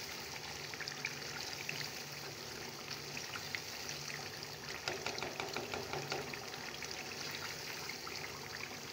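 Chicken karahi gravy bubbling and sizzling in the pan as it cooks down, a steady stream of small pops, with a faint low hum underneath.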